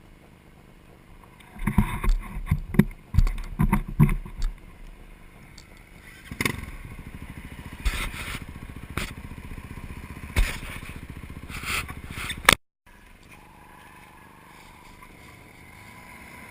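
Off-road vehicle jolting over rough ground: a cluster of loud knocks and bangs over a low rumble, then the engine running with a fast even pulse and a few sharp knocks. The sound cuts off suddenly near the end, leaving a quieter steady hum.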